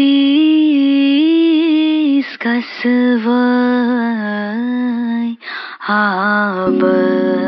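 Slow background song: a single voice holds long, wavering sung notes, with a brief break about five and a half seconds in. A steady drone comes in under the voice near the end.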